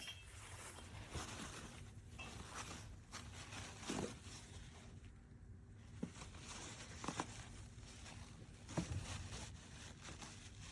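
Faint rustling and handling noises with a few soft knocks.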